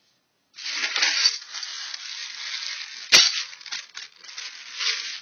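Assorted small metal nuts and bolts rattling and jingling inside a container as it is shaken and handled, with one sharp clack about three seconds in.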